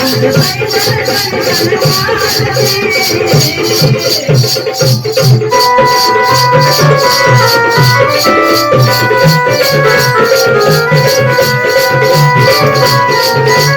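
Adivasi dance-band music: a fast, even rattling rhythm over drum beats, with a melody of clear held notes coming in about halfway through.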